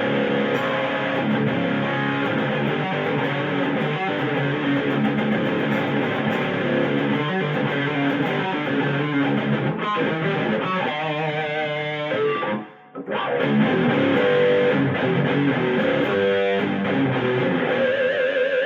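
Schecter Demon-6 electric guitar on its bridge pickup, run through an MXR Classic Overdrive boost into an Electro-Harmonix OD Glove overdrive and amp: high-gain distorted riffing in a Marshall JCM 800-type tone. The playing stops briefly about two-thirds through, then resumes and ends on a held note with vibrato.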